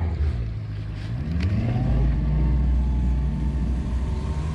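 Pontoon boat's motor running, its pitch rising about a second in as it speeds up, then holding steady.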